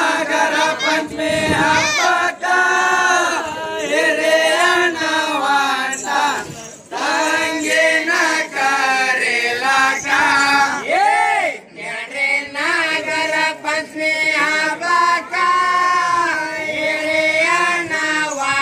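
A group of men singing a Rivayat folk song together, with long held notes that glide up and down and only brief breaks for breath.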